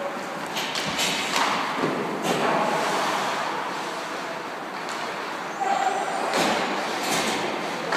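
Game sounds in a large hall: a steady background din broken by several sharp knocks and thuds, typical of sticks and a ball or puck striking each other and the boards.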